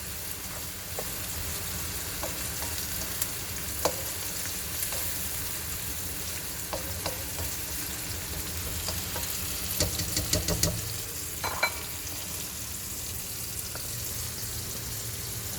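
Vegetables frying in hot oil in a kadai, sizzling steadily, with scattered clicks of a utensil against the pan and a quick cluster of them about ten seconds in.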